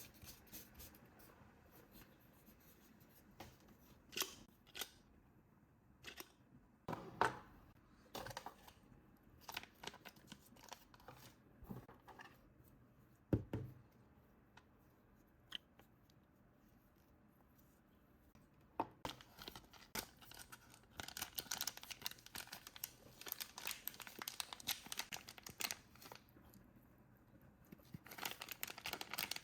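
Toy packaging being handled and opened up close: scattered sharp clicks and knocks of plastic and cardboard, then longer stretches of crinkling, tearing and rustling about two-thirds of the way in and again near the end.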